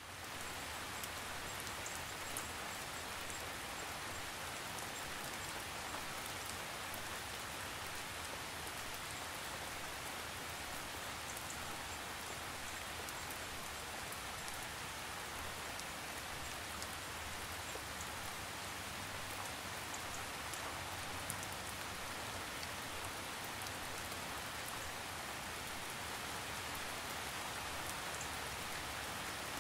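Light rain falling steadily: an even hiss with scattered small drop ticks.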